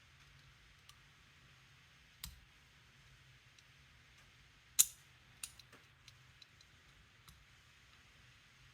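Sparse small metallic clicks of a pick and tensioner working the levers inside a Walsall 2000 five-lever padlock, with one sharper click a little before five seconds in.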